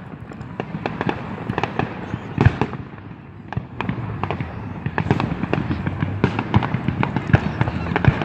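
Fireworks and firecrackers going off in a dense, irregular barrage of bangs and crackles over a constant rumble. The barrage thins briefly about three seconds in, then grows thicker again.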